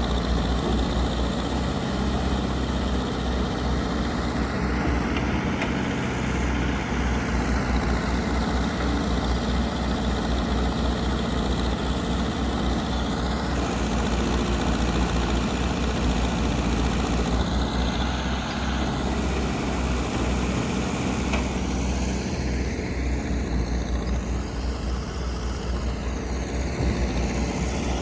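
Heavy diesel machinery engine running steadily, a low engine note that holds an even speed with no sharp revs or knocks.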